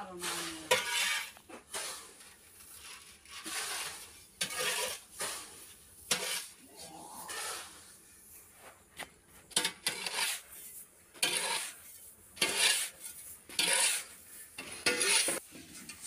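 Metal hoe blade scraping and turning granular urea and DAP fertilizer on a concrete floor, in repeated irregular strokes with a gritty rattle of granules.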